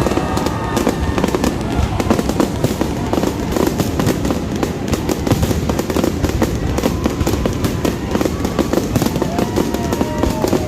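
Fireworks going off in a rapid, continuous barrage of bangs and crackles, many per second.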